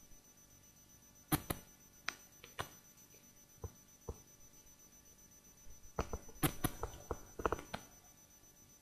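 Irregular sharp clicks and light knocks, a few in the first half and a denser cluster near the end, over a faint steady high-pitched whine.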